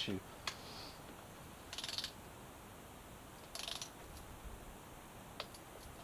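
Hand ratchet wrench clicking in two short, quick bursts about two seconds apart, with a single light click before and after, as the upper intake manifold bolts are run down.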